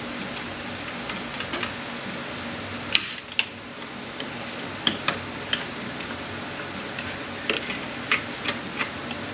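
Hand tools and metal transmission parts clicking and tapping as an automatic transmission is worked apart on the bench: a scattering of short sharp clicks, some in quick pairs, starting about three seconds in. A steady hum runs underneath.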